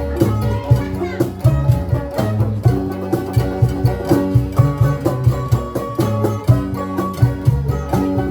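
Rondalla, a Filipino ensemble of plucked string instruments, playing a melody over a steady, rhythmic pattern of plucked bass notes.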